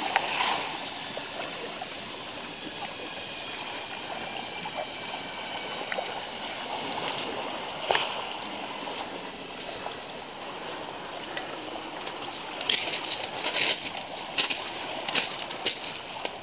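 Black Sea waves washing over a pebble shore in a steady wash. About three-quarters of the way in, crunching footsteps on the pebbles start up close by, louder than the surf.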